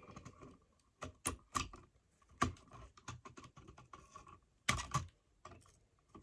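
Wire cutters snipping the wires off the back of an old household wall outlet: a run of irregular sharp clicks and snaps, the loudest about two and a half seconds in and near five seconds in.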